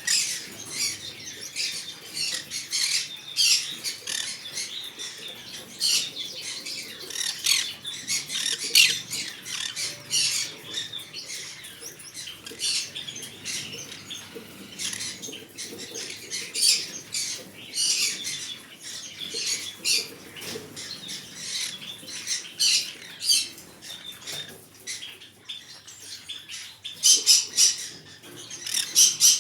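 Green-cheeked conure giving many short, sharp squawks and chirps in quick succession, with a louder run of calls near the end.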